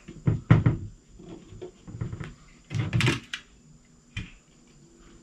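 Hand-squeeze staple gun driving staples through jute upholstery webbing into a wooden seat frame: several short, sharp snaps and knocks, the loudest about three seconds in.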